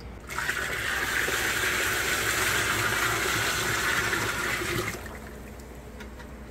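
Water poured from a five-gallon bucket into a plastic barrel of stirred ore slurry, splashing steadily, then stopping about five seconds in.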